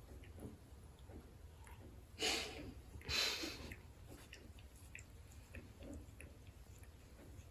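A cat sniffing close to the microphone: two short breathy puffs about a second apart, with faint clicks in between.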